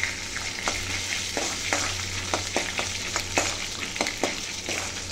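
Dried turkey berries (sundakkai vathal) frying in sesame oil in a steel kadai, a steady sizzle, while a steel spoon stirs them and clicks against the pan about twice a second.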